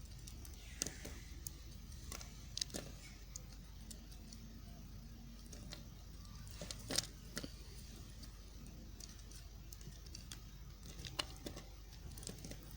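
A knife cutting a bar of soft white soap: quiet, irregular crisp cuts and sharp clicks, one every second or two, with the loudest about halfway through.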